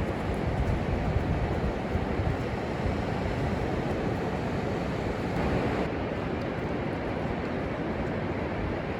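Wind buffeting the microphone over the steady wash of surf on the beach, with a slight swell about five seconds in.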